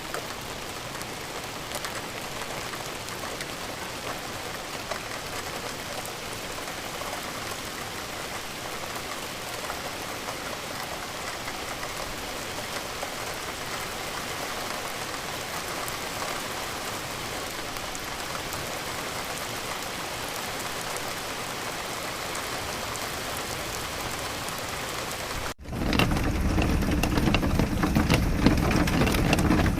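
Steady rain falling, an even hiss of drops. Near the end it cuts off suddenly and gives way to a louder, deeper rushing sound.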